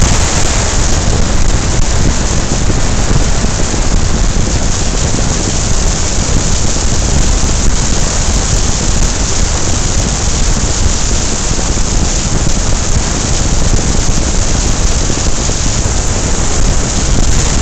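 Wind rushing over the microphone from a moving open convertible, a loud, steady rush blended with road noise.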